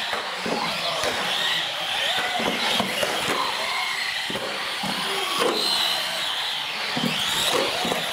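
Several small radio-controlled UTV race cars driving hard on a concrete floor: their electric motors whine, rising and falling in pitch with the throttle, over tyre noise, with a few sharp knocks.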